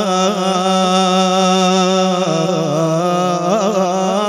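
A male radood singing a long held, wordless note of a Husseini latmiya lament into a microphone. The note holds steady, then turns into quick melismatic turns in the second half before ending.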